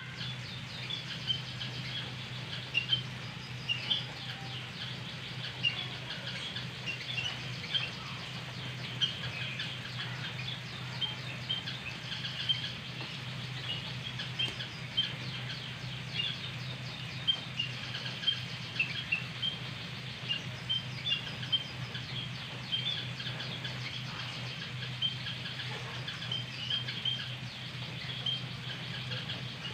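White-headed munias giving short, thin, high chirps, scattered irregularly and often overlapping, over a steady low hum.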